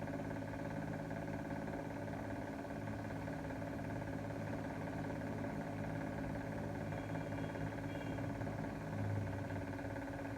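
A steady machine hum with several constant tones and no change in speed.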